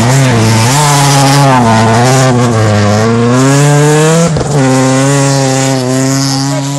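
A car engine runs hard close to the microphone, its pitch rising and falling several times as it revs and changes gear, over a hiss of tyres on the snowy road. After a jolt about four seconds in it holds a steady note, then eases off near the end.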